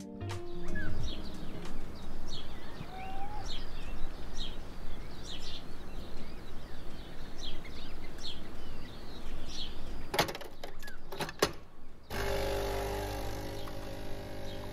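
Birds chirping again and again over an outdoor hiss. After a few sharp clicks, a capsule espresso machine's pump starts up near the end and hums steadily.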